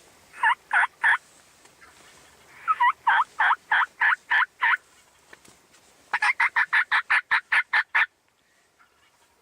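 Turkey yelping in three runs: three yelps, then about eight, then a faster run of about a dozen that stops abruptly. Each note breaks from a lower to a higher pitch.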